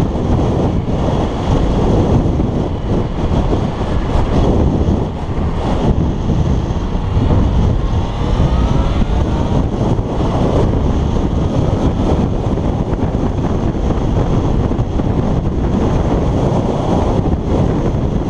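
Heavy wind buffeting on a helmet-mounted GoPro's microphone at road speed on a motorcycle, a dense rumbling rush that buries the engine. Faint rising tones show through it about six to nine seconds in.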